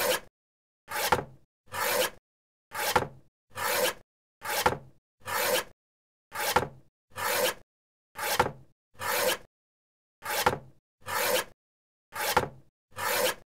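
A paper cutter cutting over and over in pairs of strokes: each stroke is a short rasping slice that swells and ends in a sharp click. The two strokes of a pair fall about 0.8 s apart, and a new pair starts about every two seconds.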